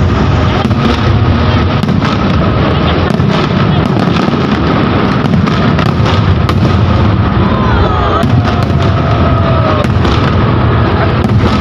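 Loud fireworks display: a dense, unbroken barrage of bangs and crackle from aerial shells bursting overhead while more shells and comets shoot up.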